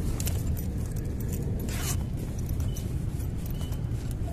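Hands handling fishing gear and line close to the microphone: small scrapes and clicks, one longer scrape about two seconds in, over a steady low rumble.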